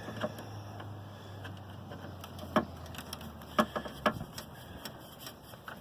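A few sharp clicks and clinks of hand tools working on screws behind a pickup truck's grille, over a faint low hum that stops near the end.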